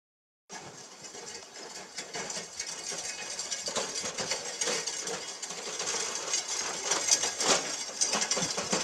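Wheelbarrow pushed over dirt, its steel tray and load rattling and clanking with footsteps, getting louder as it comes near.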